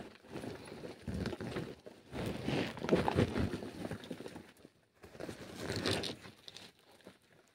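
Irregular scraping and rustling as a person squeezes down a narrow rocky hole, body and clothing rubbing against dry dirt and rock. It is loudest about three seconds in and again about six seconds in.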